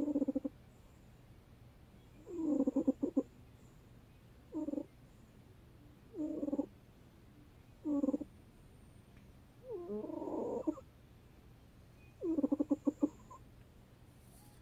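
A sleeping pet snoring: seven buzzing, rattling snores, about one every two seconds.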